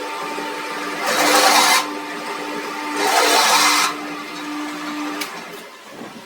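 A workshop power tool runs with a steady hum. Two loud hissing bursts, each under a second long, come about a second in and about three seconds in. The hum stops near the end.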